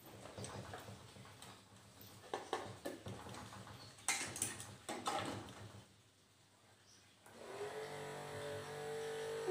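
Three short runs, each about a second long, of the model cruise ship's small 12-volt electric motor as it is switched on and off, with some handling noise. A steady tune fades in near the end.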